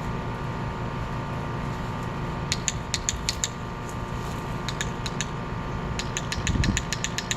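Dog-training clicker clicked repeatedly in two quick runs, a handful of clicks about two and a half seconds in and a longer run near the end, over a steady background hum.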